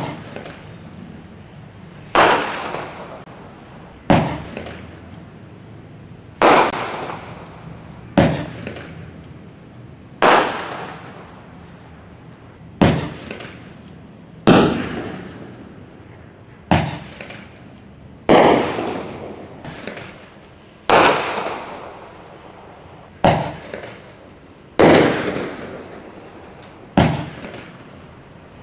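Roman candle firing stars one at a time: a sharp pop about every two seconds, each followed by a short fading tail.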